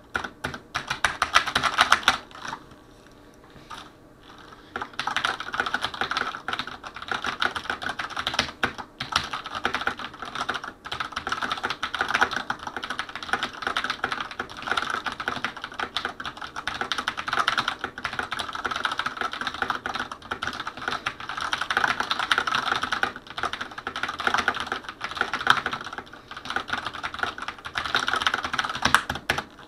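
Fast, continuous typing on a Mionix Zibal 60 mechanical keyboard with linear Cherry MX Black switches: a dense run of key clacks, mostly from the keys bottoming out, with a brief lull about three seconds in.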